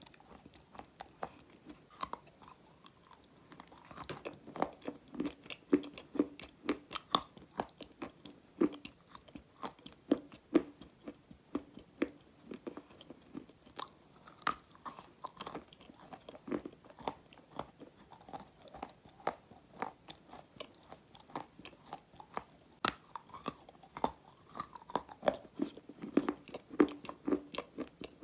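Close-miked chewing of dry black edible clay (enchantress clay): a run of crisp crunches and crackles as the chalky lumps break between the teeth, with a brief lull about three seconds in.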